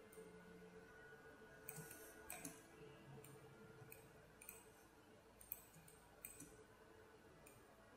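Near silence broken by about a dozen faint computer-mouse clicks at irregular spacing, made as pen-tool anchor points are placed one by one.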